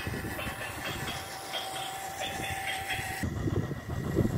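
Toy train running on plastic track: a steady whine with a soft rhythmic pulse about three times a second. About three seconds in it changes abruptly to a louder, lower rumble.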